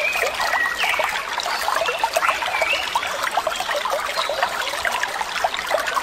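A forest stream gurgling and splashing over rocks: a steady, dense babble of running water.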